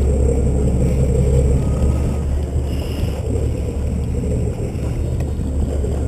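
Motorboat engine running with a steady low drone, easing slightly after about a second and a half, under a hiss of wind and sea.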